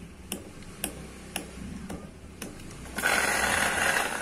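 ACA home espresso machine ticking steadily about twice a second, then a loud hissing rush starting about three seconds in. The machine is running normally again after a blinking-indicator fault.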